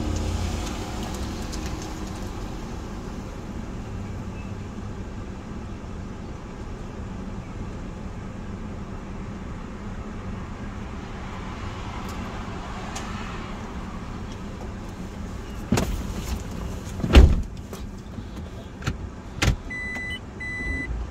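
Steady low hum inside a car idling with its heater on. About three-quarters of the way in come a few sharp knocks and thumps, the loudest one near the middle of them, and near the end a repeating beep starts: the car's in-cabin reverse-gear warning as it backs out.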